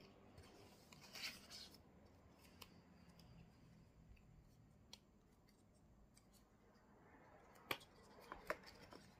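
Faint handling of a stylus in its clear plastic sleeve: a short crinkle about a second in, then a few small sharp clicks near the end as the sleeve is worked open.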